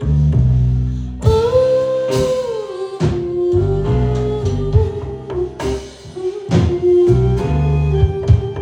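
Live band playing a pop-rock song: a female voice holding long sung notes over bass guitar, electric guitar and a drum kit.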